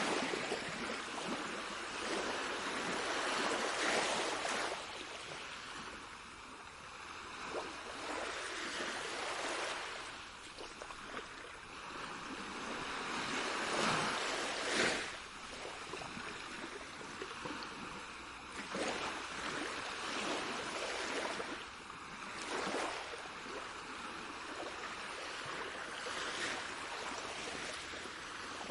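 Sea waves breaking and washing ashore, a steady hiss of surf that swells and falls back every few seconds.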